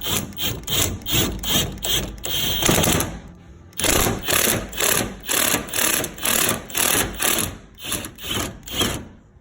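Hand ratchet being swung back and forth on a freshly lubricated fuel-tank strap bolt, rasping in quick, even strokes about three a second with a short pause a few seconds in, as the bolt works loose.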